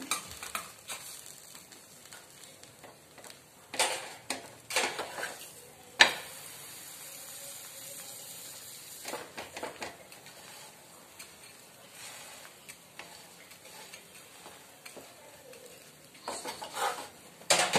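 Butter sizzling under bread sandwiches toasting on a flat tava, a steady hiss. A few sharp clatters and scrapes against the pan, the sharpest about six seconds in and a cluster near the end.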